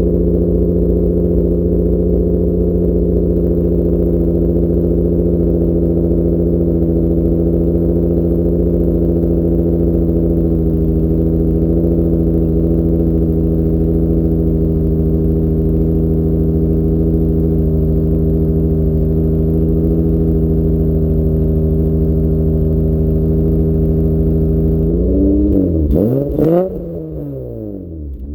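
Honda J32 3.2-litre V6 in a Civic running at a steady fast idle shortly after a cold start. Near the end there is a click and the engine note bends down and back up as it gets quieter.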